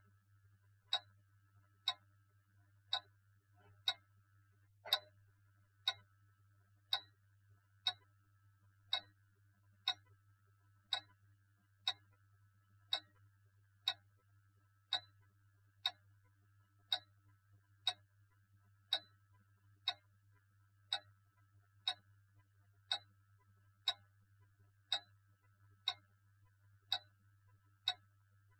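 Clock ticking steadily, one tick a second, over a low steady hum.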